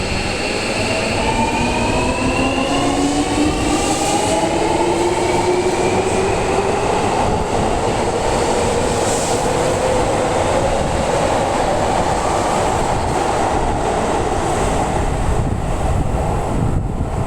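A Seibu 40000 series electric train departs, its traction motors whining with several tones that rise together in pitch as it accelerates. The whine then gives way to steady rail running noise.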